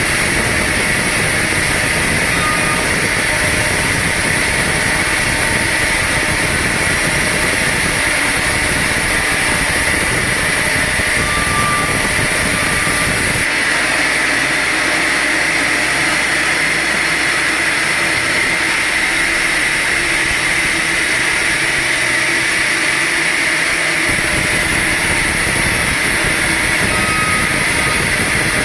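Sawmill machinery running steadily with a constant loud whine and hiss. The low rumble cuts out suddenly about halfway through and comes back near the end.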